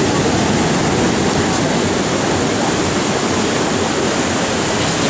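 Storm surf: heavy waves breaking and churning, a loud, steady rush of water noise with no single crash standing out.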